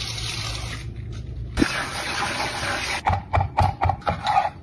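Kitchen tap running onto hands rinsing basil leaves in a sink. About three seconds in, a knife starts chopping basil on a wooden cutting board in quick strokes, about six a second.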